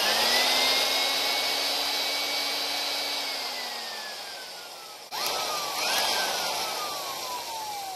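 Vintage Cummins electric drill with a Versamatic speed reducer on its chuck, the motor whining at speed and then winding down with no brake about three seconds in. It starts up again sharply about five seconds in and coasts down once more.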